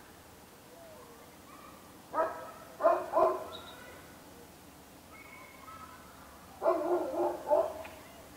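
Short, loud animal calls in two bouts: three about a second apart, then a quick cluster of three near the end. Faint high chirps come in between.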